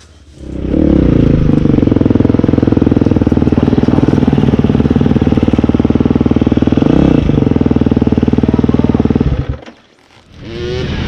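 Dirt bike engine running loud and close at a steady speed, with a short blip of the throttle about seven seconds in. It cuts off suddenly near the end, and a voice follows.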